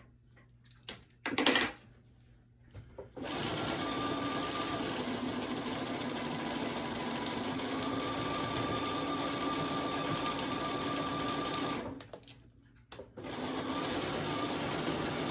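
Bernina sewing machine stitching binding with its binder attachment: it runs steadily for about nine seconds, stops for about a second, then starts sewing again. Before it starts there are a few light clicks and one sharp knock.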